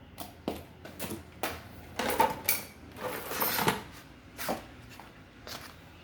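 Irregular clicks, knocks and short scrapes of parts being handled, with a couple of louder scraping rubs in the middle.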